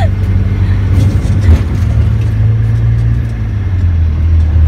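Pickup truck engine running steadily with road noise, heard from the open back of the truck, with scattered clicks and a knock about a second and a half in.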